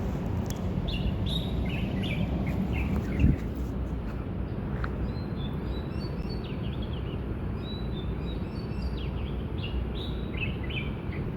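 Birds chirping in short repeated calls over a steady low rumble, with a single thump about three seconds in.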